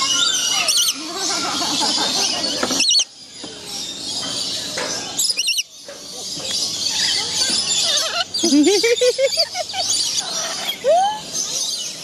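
A flock of lories and lorikeets calling: a dense chorus of high screeches and chirps, with rising squeals about two-thirds of the way through. The sound drops away suddenly twice, each time for a moment.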